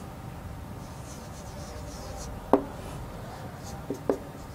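Marker pen writing on a whiteboard: faint scratching strokes, with two sharp taps of the marker against the board, one about halfway and one near the end.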